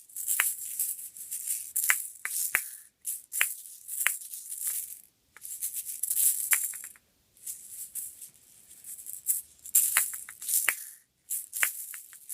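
Handheld toy balls being worked through a ball-swap trick: irregular rattling swishes with sharp clicks, some ringing briefly, a dozen or so at uneven intervals.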